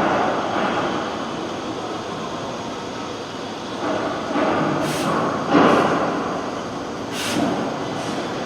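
Salvagnini fiber laser cutting machine running: a steady mechanical noise that swells and fades as the head works. Several short high hisses, the loudest about five seconds in and again about seven seconds in, sound like the assist gas.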